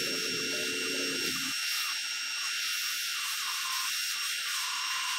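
Active VE52 electric pressure washer spraying a jet of water through its short gun onto a car's side to rinse off foam: a steady hiss with a thin high tone running through it.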